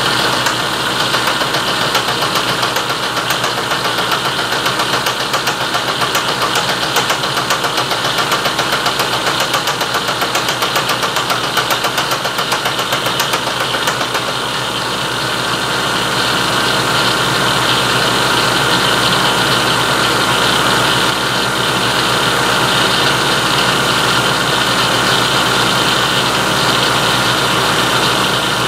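Milling machine running a fly cutter through a light cut along the edge of a quarter-inch steel part, a steady machining noise with a rapid regular pulse. About halfway through the pulsing eases and the sound runs steadier.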